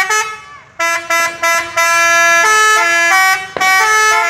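A telolet horn, a set of air-horn trumpets each sounding its own note, playing a quick tune of stepped, chord-like notes. After a brief pause about half a second in, the notes run on without a break until near the end.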